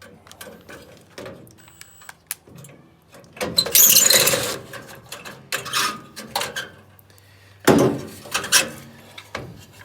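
Loose metal headlight parts clattering and rattling as the headlight assembly is worked out of the front end: two loud bursts, about three and a half seconds in and near eight seconds, with small clicks and taps in between.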